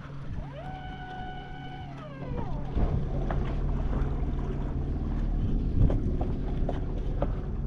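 Fishing reel's drag buzzing for about two seconds as a hooked speckled trout pulls line, its pitch rising, holding, then falling. It is followed by a louder low rumble with scattered clicks.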